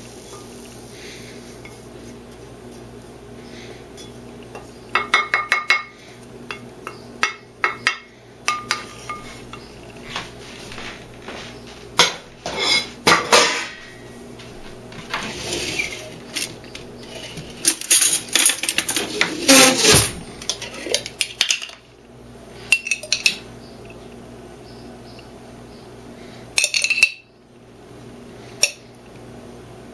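Spatula scraping and knocking against a frying pan and a ceramic plate while scrambled eggs are served, in irregular bursts of clatter, with a steady low hum beneath.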